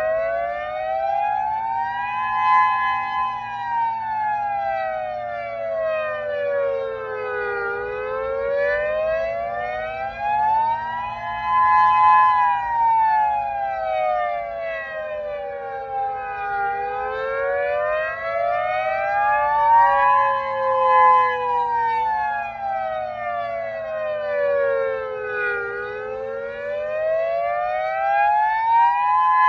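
Federal Signal Modulator outdoor warning siren sounding its custom wail: a loud tone rising and falling in pitch in slow, even sweeps, one about every nine seconds. A second, slightly out-of-step sweep is layered over it.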